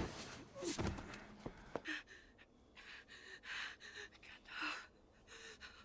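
A young man gasping, with a few short ragged breaths spread unevenly over several seconds: the breathing of someone badly shaken.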